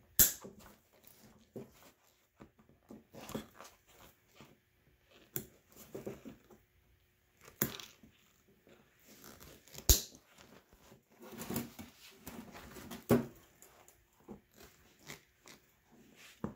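Heavy-duty side cutters snipping through the metal hog rings that hold a seat cover to its foam cushion. There are about five sharp snips a few seconds apart, the loudest near the middle, with quieter handling noise between.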